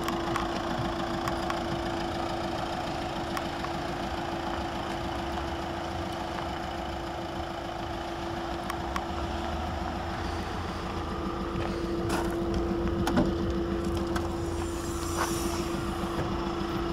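Steady low hum of an idling engine with a constant tone in it. A few sharp clicks and knocks come about two-thirds of the way through, and a few more near the end, as the van's tailgate is unlatched and lifted.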